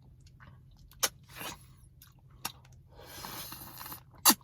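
A person chewing and crunching a mouthful of Reese's Take 5 Blizzard, with a few sharp mouth clicks and a scratchy rustle lasting about a second near the end.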